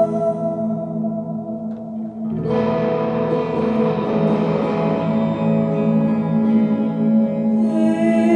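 Electric guitar played through an amp with effects: held notes thin out, then about two and a half seconds in a fuller, denser guitar sound comes in and sustains.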